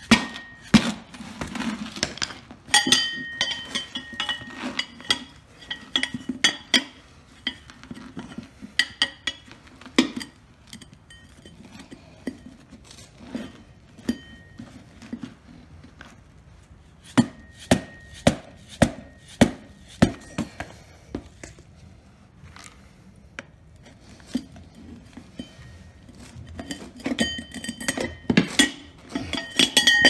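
Hammer blows and a tire iron knocking and clinking against the steel wheel rim of a lawn tractor tire as the tire is worked off the rim. The sharp knocks, several of them ringing, come in irregular bunches with short pauses.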